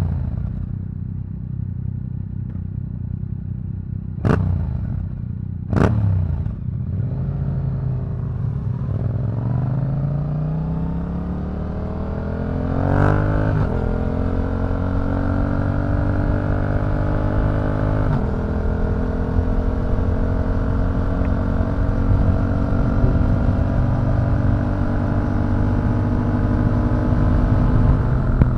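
Yamaha MT-07's 689 cc parallel-twin engine, through an Akrapovič racing exhaust, running under way. Two short sharp bursts come early. The engine then accelerates in one long rising pull and settles into a steady, slowly climbing drone at higher revs.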